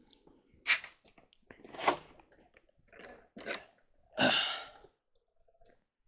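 Rummaging: several short scrapes and clatters of objects being moved about in search of a set of drill bits, the loudest and longest about four seconds in.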